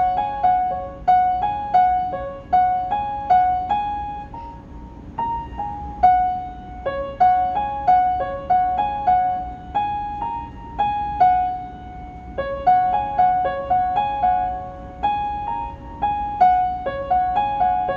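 Upright piano played by a beginner: a simple melody, mostly one note at a time, in short repeated phrases, with brief pauses about four and twelve seconds in.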